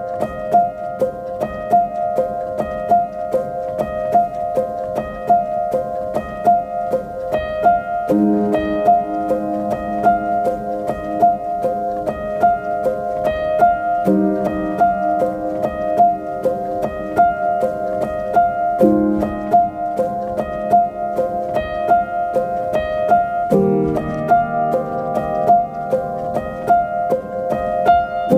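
Background piano music: a steady stream of evenly paced notes over a low chord that changes every five seconds or so.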